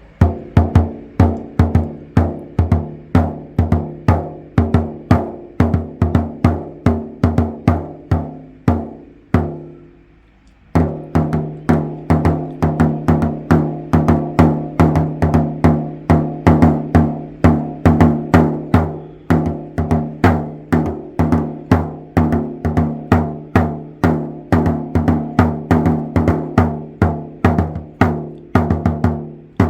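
Budget 10-inch shamanic frame drum being struck in a steady beat of several strokes a second, each hit ringing on with a long, somewhat cloudy resonance. The beating stops for about a second around ten seconds in, then resumes.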